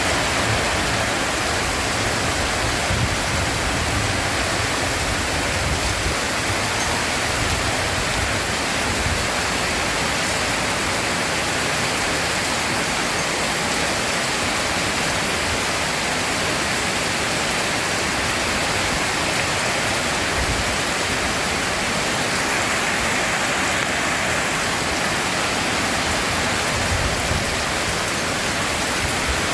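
Heavy rain pouring steadily, a dense, even hiss, with a low rumble swelling now and then.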